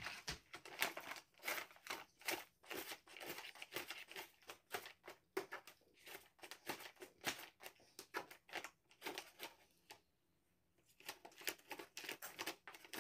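A sheet of paper crinkling and rustling in quick, irregular bursts as a cat paws and scratches at it, with a pause of about a second about ten seconds in.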